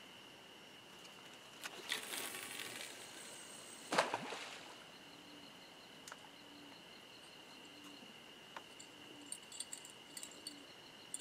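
A fishing rod being cast: line hissing off the reel about two seconds in, then the baited rig landing in the water with a splash about four seconds in. A steady cricket trill runs underneath, and there are light clicks near the end.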